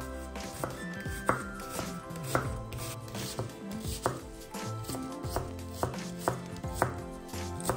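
Kitchen knife chopping on a cutting board, with sharp strokes coming unevenly about twice a second.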